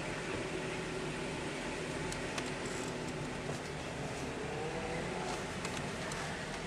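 Car driving slowly, heard from inside the cabin: a steady low engine and tyre hum with a few faint clicks.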